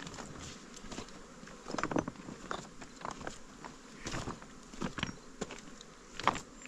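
Honeybees buzzing around open beehives, with many short louder swells as single bees fly close by.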